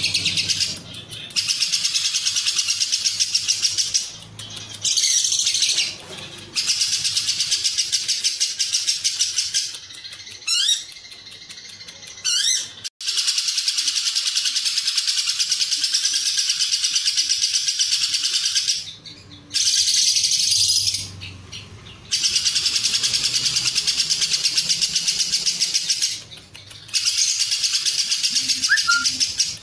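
Lovebird 'ngekek' singing: long runs of rapid, high-pitched chattering notes, each lasting several seconds, broken by short pauses and a few quick rising whistles. The song is filled with cililin-style phrases ('isian cililin').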